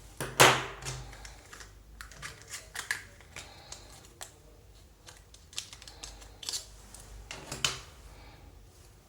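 Irregular clicks, taps and scrapes of small hard parts being handled while RAM is fitted in a Mac. The loudest knock comes about half a second in and another near the end.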